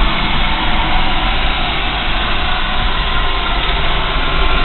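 Ray Company oil burner running and firing an old low-pressure steam boiler: a steady, even noise of its blower motor and flame with a deep low hum underneath, the burner working properly.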